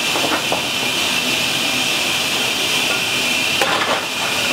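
Steam hissing steadily from an LMS Jubilee Class steam locomotive, 45596 Bahamas, standing with steam up. A brief clatter comes near the end.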